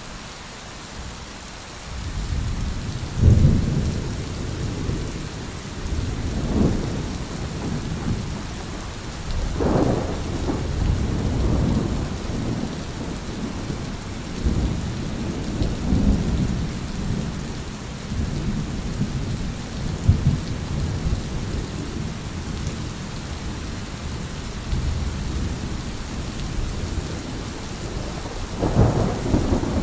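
Thunder rolling over steady rain: a deep rumble starts about two seconds in and swells and fades several times, with louder peaks near the start, in the middle and near the end, under an even hiss of rain.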